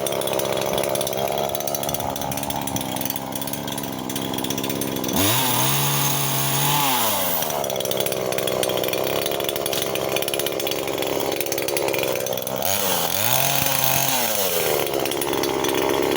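Two-stroke chainsaw running steadily at low speed, then revved up twice for about two seconds each, its pitch rising then sagging, as it cuts firewood.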